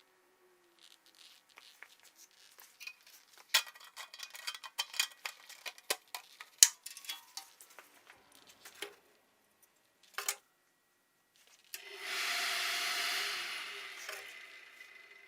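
Clinks, taps and knocks of steel being handled at a workbench, then a burst of hiss that fades out over about three seconds.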